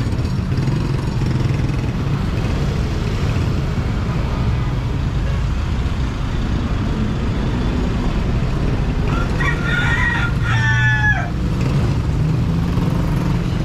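Steady low rumble of city street traffic, with a rooster crowing once near the end: a call of several syllables lasting about two seconds that falls in pitch at the close.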